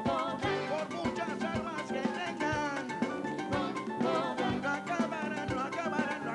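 Live band playing Catalan rumba, with Spanish guitar and Latin percussion including timbales keeping a steady beat under wavering melodic lines.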